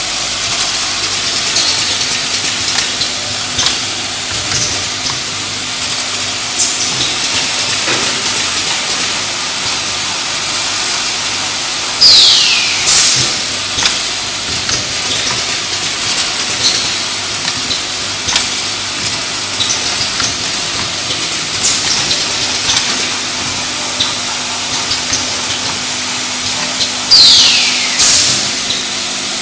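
Pneumatically driven automatic bottle filling and capping line running: a steady high hiss with scattered small clicks and knocks from the machinery. Twice, about fifteen seconds apart, a louder burst sounds, each opening with a quickly falling whistle-like sweep followed by a short hissing blast.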